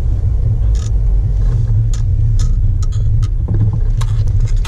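Jeep Wrangler JK running: a steady low rumble, with scattered light clicks and rattles over it.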